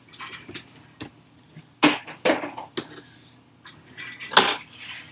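Irregular sharp clicks, taps and short scrapes of laptop screen parts being handled, disconnected and set down; the loudest knocks come about two seconds in and again about four and a half seconds in.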